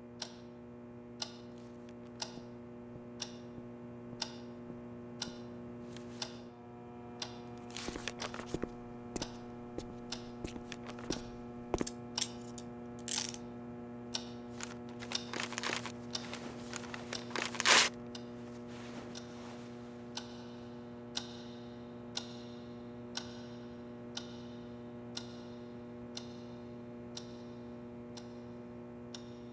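A clock ticking about once a second over a steady electrical hum. In the middle, a flurry of irregular clicks and knocks breaks in, the loudest near the end of that stretch, before the plain ticking resumes.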